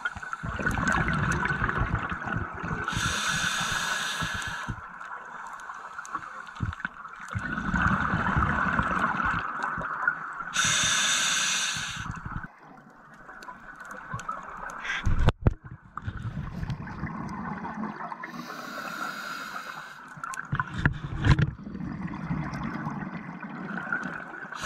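Scuba regulator breathing underwater: three hissing inhalations, several seconds apart, alternate with longer bubbling, gurgling exhalations. A single sharp knock about fifteen seconds in is the loudest moment.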